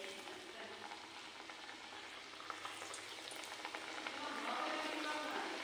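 Pieces of semolina dough deep-frying in hot oil in a wok, a steady sizzle with fine crackling as the oil bubbles around a freshly added piece. The sizzle grows a little louder from about four seconds in.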